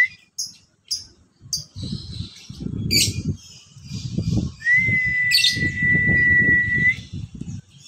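Male Fischer's lovebird calling: a few short sharp chirps, then harsh chattering calls about three seconds in and again past the five-second mark. A long steady whistle runs for about two seconds past the middle, and a low rustling noise sits under the calls.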